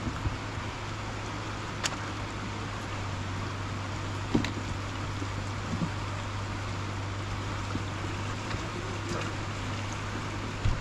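Swollen monsoon floodwater rushing steadily, with a steady low hum underneath and a couple of brief knocks.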